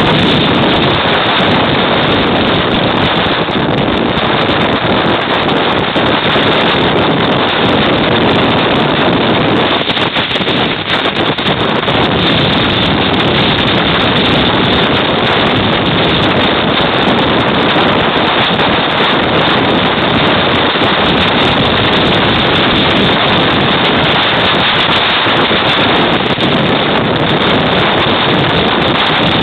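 Loud, steady wind noise buffeting the microphone aboard a sailing yacht, drowning out everything else.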